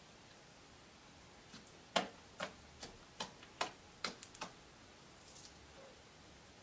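Slime being pressed and squeezed by hand, giving a quick run of about ten sharp little pops and clicks as air pockets burst, the loudest about two seconds in.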